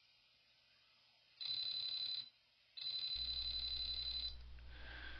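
Brushless motor, driven by a drone ESC, whining high-pitched in two short runs as it turns a pair of 3D-printed spur gears; a steady low hum joins during the second run.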